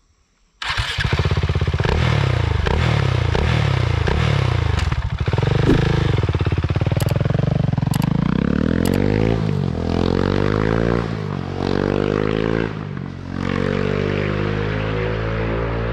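KTM 690 SMC R single-cylinder engine starting about half a second in, then revving in repeated throttle blips and settling toward idle. It runs through an Arrow exhaust with the dB killer removed, so it is very loud.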